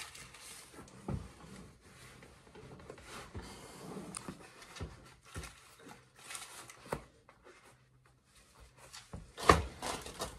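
Rustling and soft knocks as fur-lined boots are pulled on and handled, with a louder thump near the end.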